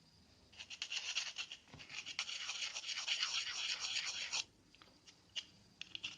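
Needle file rasping back and forth on the hard polymer base of a pump shotgun's trigger group, taking off casting flash that binds the hammer and causes light primer strikes. The rapid strokes run for about four seconds and stop, followed by a couple of light clicks.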